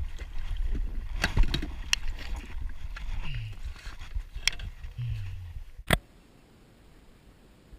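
Wind rumbling on the camera microphone over water noise, with a handful of sharp knocks and bumps against the boat as a jack is handled aboard. The loudest knock comes near six seconds, after which the sound drops off suddenly to a low hiss.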